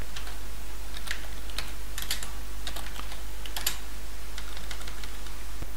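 Typing on a computer keyboard: a scattered run of individual keystrokes, irregularly spaced, over a steady low hum.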